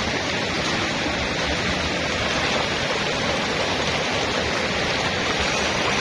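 Steady rush of shallow, muddy flowing water.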